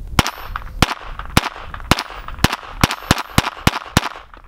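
A handgun fired about ten times in a row, roughly one shot every half second at first and coming quicker toward the end.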